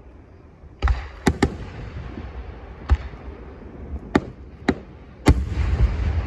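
Fireworks bursting: a string of about seven sharp bangs at uneven intervals, the last one about five seconds in followed by a denser, louder spell of crackling and rumbling.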